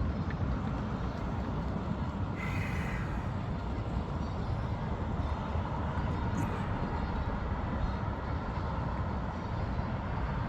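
Steady low outdoor rumble with no distinct bangs.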